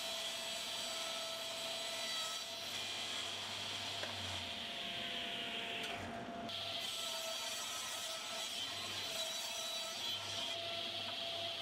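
Table saw running and ripping 18 mm pine plywood along the fence into strips, a steady sawing sound throughout.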